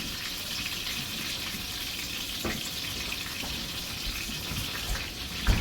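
Rabbit pieces frying in a pan, a steady sizzle.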